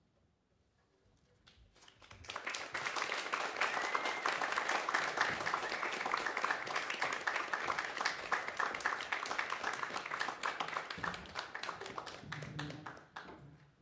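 Audience applauding at the end of a performance: clapping starts about two seconds in, holds steady for around ten seconds, then dies away near the end.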